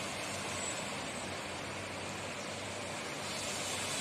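Steady wet-street ambience in light rain: a low, even engine and traffic hum under a steady hiss.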